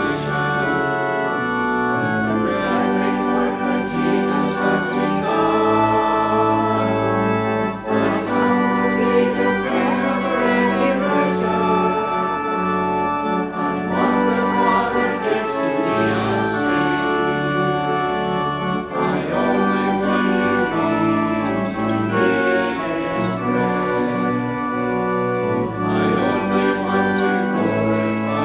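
Organ playing a worship song in sustained chords while a congregation sings along faintly.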